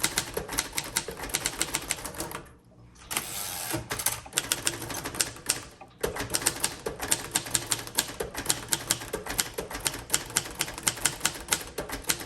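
1953 Royal Quiet Deluxe manual typewriter being typed on: a quick, steady run of keystrokes as the type bars strike the platen, with a short pause about two and a half seconds in.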